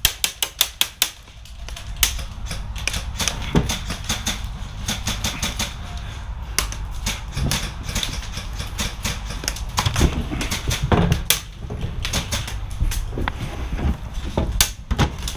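Airsoft guns firing: rapid sharp clicking shots, evenly spaced at about six or seven a second at first, then a dense, irregular exchange of fire over a low rumble.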